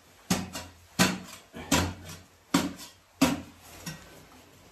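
Grafter spade jabbed repeatedly into clay, shaving the trench floor down a bit at a time: six sharp thuds, about one every two-thirds of a second.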